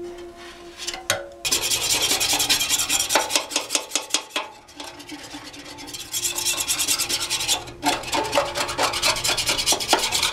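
A scraper dragged over a metal motorcycle fuel tank, lifting paint softened by chemical paint remover: rapid rasping strokes in three runs, starting about a second and a half in, with short pauses about four and a half and eight seconds in.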